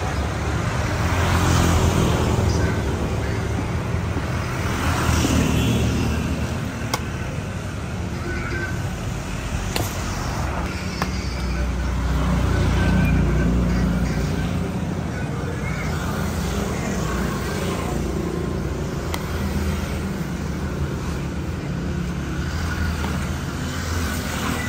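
Street traffic noise: vehicles running and passing as a steady low rumble that swells and fades several times, with faint voices in the background and a couple of sharp clicks.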